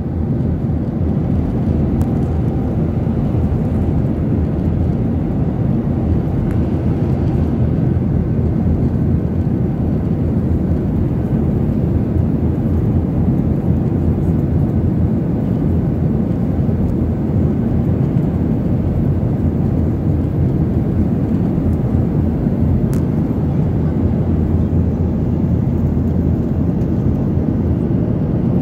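Steady cabin noise of a jet airliner in flight: engine and airflow noise, deep and even.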